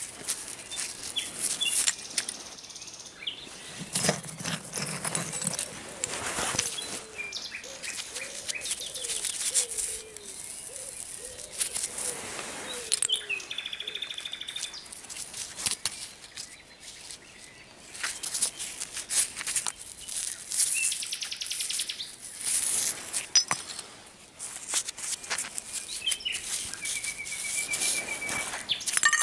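Gloved hands scraping and rustling through loose soil and pulling buried rubber hoses out of a dig hole, with bits of dirt crumbling and scuffing. Birds sing in short whistles and a trill in the background.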